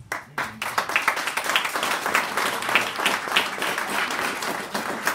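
Audience applauding, with the clapping starting suddenly a moment in.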